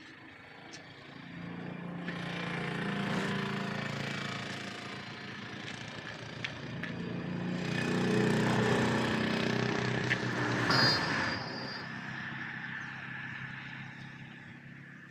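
Motor vehicle engines passing by twice. Each one rises and then fades, and the second, about 8 to 11 seconds in, is the louder.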